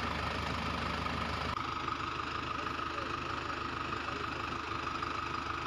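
Engine idling at a steady speed, with a constant hum and a steady high tone over it. The sound changes character abruptly about a second and a half in.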